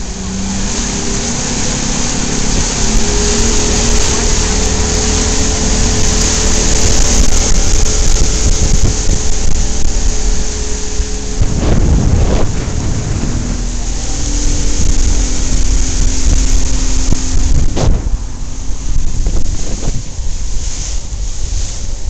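Loud wind buffeting the microphone over the steady hum of a motorboat's engine, with two heavier gusts, about halfway and near the end.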